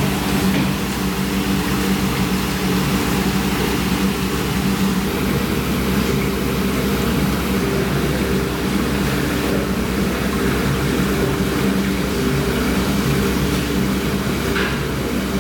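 Steady mechanical drone of running machinery, holding one unchanging pitch under a constant hiss.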